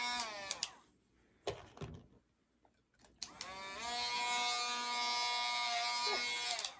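Handheld pet nail grinder winding down as it is switched off. After a couple of faint clicks it is switched on again: the whine rises as it spins up, runs steadily for about three seconds, then winds down near the end.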